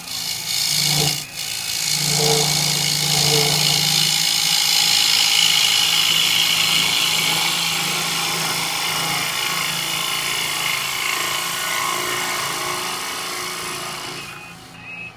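Bowl gouge cutting into a spinning cherry bowl on a wood lathe: a steady, loud hiss of wood being peeled off as shavings, with the lathe humming underneath. The cut breaks off briefly about a second in, then runs on and stops shortly before the end.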